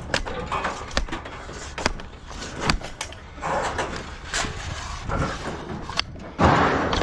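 Scattered knocks and clanks of scrap metal being handled, with a louder, noisier scrape or rattle about six and a half seconds in.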